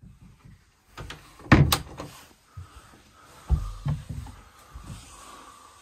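A wooden cabin door closing with two sharp clacks, followed by footsteps thudding on the carpeted cabin steps.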